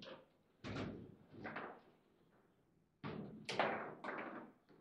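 Foosball table in play: the ball and the rod men knock hard against each other and the table in short, sharp thuds. There are two knocks in the first two seconds, then a louder cluster of three about three seconds in, as a shot is scored into the goal.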